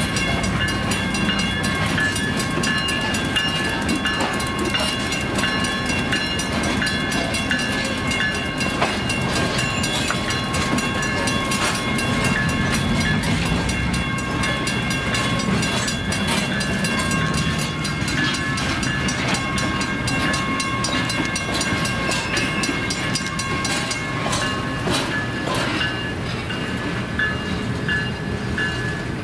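Train of molten-steel bottle cars (torpedo ladle cars) rolling past on steel wheels: a continuous rumble and clatter of wheels on rail. Steady high metallic tones ring above it.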